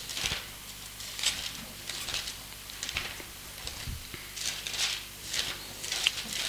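Bible pages being leafed through: a string of short, irregular paper rustles.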